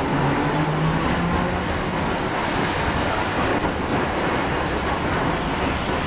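Inside a Manyosen streetcar running along street track: a steady rumble of wheels and running gear, with a faint low hum in the first second or so and a thin, faint high tone, like light wheel squeal, in the middle.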